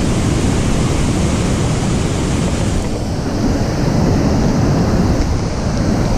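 Loud, steady rush of whitewater rapids and water pouring over a dam spillway.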